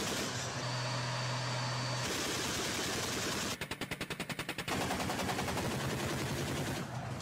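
Automatic cannon fire from a BMPT-72 tank support vehicle's twin 30 mm autocannons. The firing is dense and sustained, with a clearly separated rapid burst of about ten shots a second around the middle.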